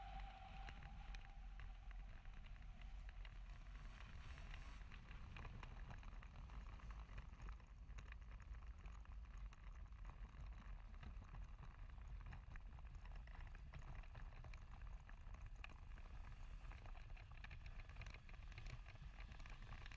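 Faint low rumble and irregular rattling of a Cosmos ultralight trike rolling across a grass field. A faint tone falls away during the first second.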